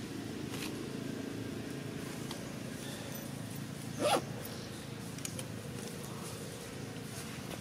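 A single short animal call about four seconds in, over a steady low background hum.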